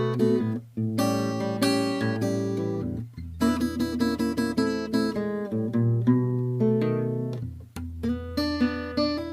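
1968 Japanese-made Yamaha S-70 guitar being played: strummed chords and picked notes that ring on and fade. Short breaks between phrases come about a second in, about three seconds in and near the end.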